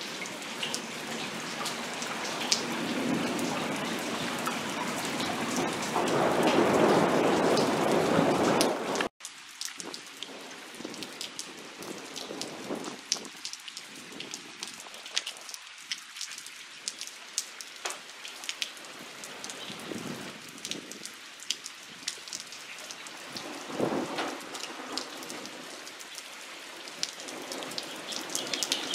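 Heavy rain pouring steadily, swelling to a louder rush in the first third and then cutting off abruptly about nine seconds in. After that comes lighter, steady rain with many sharp raindrop ticks.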